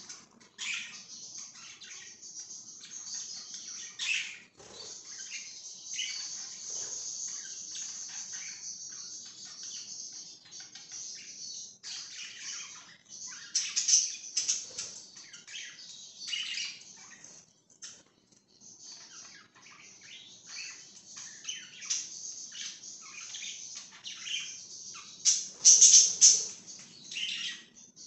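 A flock of budgerigars chirping and chattering, many short high calls overlapping, with louder bursts around the middle and near the end.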